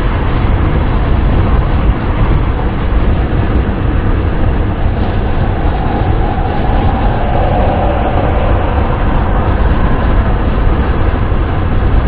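Steady wind and road noise of a car being driven, heavy in the low rumble, with a faint hum swelling briefly in the middle.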